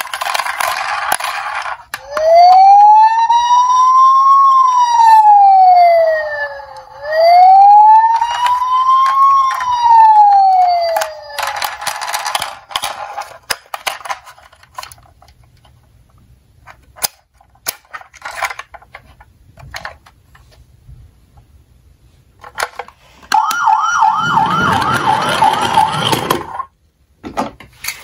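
Toy ambulance's electronic siren sounding two slow wails that rise and fall in pitch, with short bursts of hiss before and after. Then come plastic clicks of the toy being handled and its rear door opened, and near the end a short, fast yelping siren.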